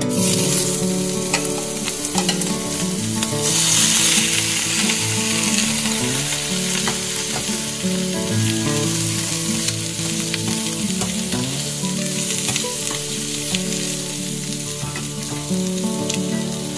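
Cubes of pork belly sizzling as they fry in a hot pot without oil, the sizzle starting as the meat goes in and strongest about four seconds in.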